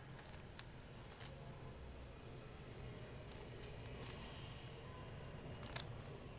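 Faint clicks and clacks of a plastic 3x3 Rubik's cube as its layers are twisted, over a low steady hum.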